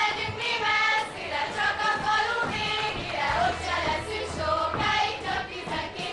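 Hungarian folk song sung by a group of women's voices together, with a low bass line coming in about halfway through.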